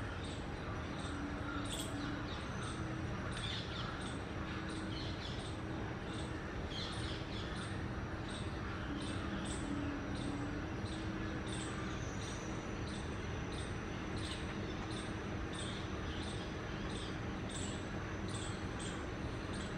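Small birds chirping in quick short calls, about two a second, over steady background noise with a faint low hum.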